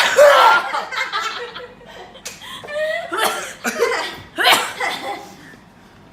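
A person's sneeze bursting out right at the start, followed by laughing in several breathy bursts, the last about four and a half seconds in.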